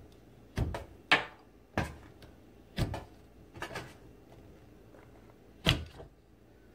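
Black plastic control knobs being pulled off the valve stems of a stainless-steel gas stove top: about six sharp clicks and knocks of plastic on metal, the loudest about a second in and near the end.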